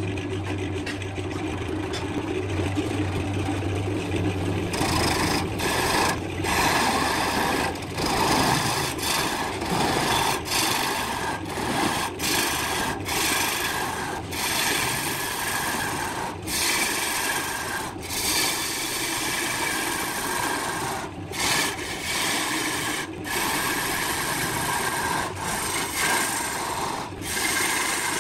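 Wood lathe running with a gouge cutting the spinning wooden blank, throwing off shavings. For the first few seconds only the motor hum is heard; about five seconds in the rasping cut starts and goes on in repeated passes, with brief breaks every second or two as the tool is lifted and moved.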